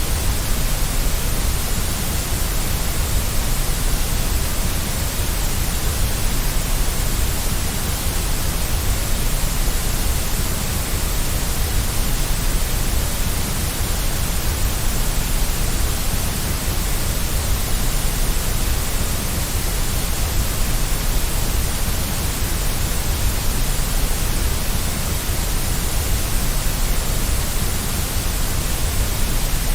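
Continuous steady white noise for lulling a baby to sleep: an even, unchanging hiss with a full low rumble beneath it.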